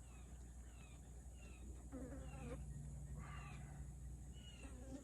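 Birds chirping: short, high, downward-sliding chirps repeating about every half second to second, over a steady low hum.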